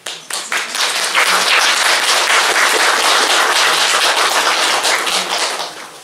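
Audience applauding: a few scattered claps swell within a second into steady clapping by many hands, which dies away near the end.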